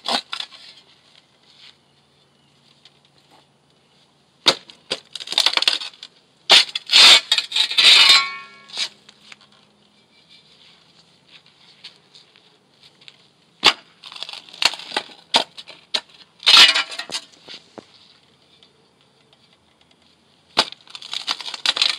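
Steel flat shovel chopping down through turf along a concrete edge, the blade scraping and clinking against the concrete. It comes in separate clusters of strokes every few seconds, with quiet gaps between.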